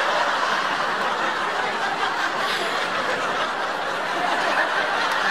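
Studio audience laughing steadily as one sustained wave of laughter.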